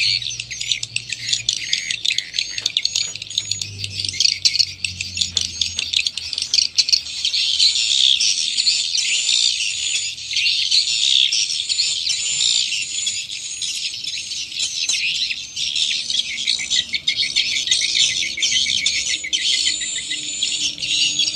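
Electronic swiftlet call and lure recording played through a pair of horn tweeters on a swiftlet-house amplifier: dense, high-pitched chirping and twittering, growing denser about seven seconds in.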